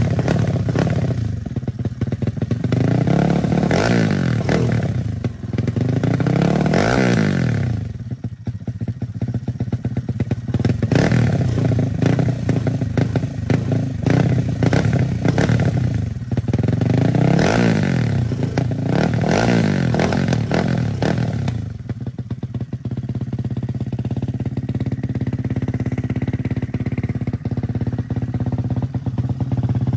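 Honda Grom's freshly built 205cc stroker single-cylinder, four-valve engine running. It is revved up and back down several times, then settles to a steady idle for the last several seconds.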